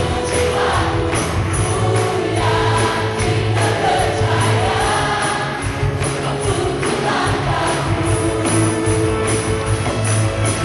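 Live gospel praise-and-worship band playing on drum kit and keyboard, with voices singing along.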